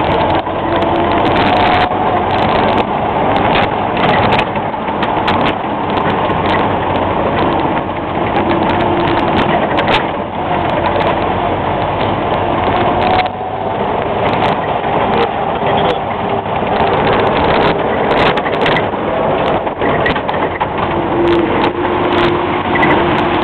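Land Rover Series III driving along a rough dirt track, heard from inside the cab: steady engine and drivetrain noise with frequent knocks and rattles.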